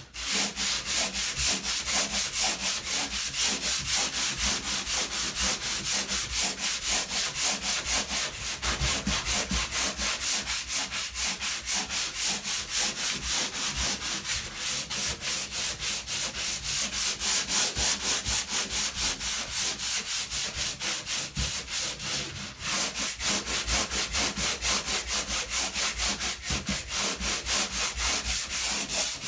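A hand-held drywall sander with a replaceable sanding pad scrubbing back and forth over a dried spackle patch on drywall. The sanding strokes are quick and even, with a brief pause about three-quarters of the way through.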